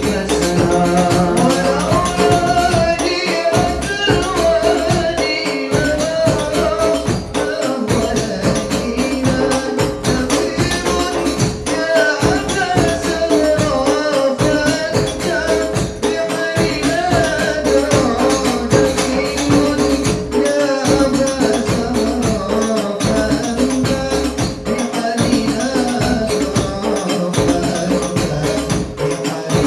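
Live sholawat (Islamic devotional song): male voices singing a wavering melody through microphones, over a steady beat from drums including a large bass drum, with jingling hand percussion.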